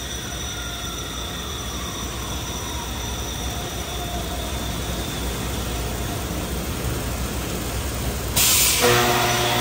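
Factory production-line machinery running with a steady low hum and a slowly falling whine. Near the end a sudden loud hiss breaks in, followed by a steady metallic squeal.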